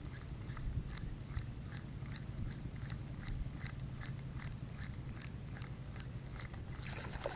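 Spinning reel being cranked to retrieve a lure, ticking evenly about three times a second. A low wind rumble runs underneath.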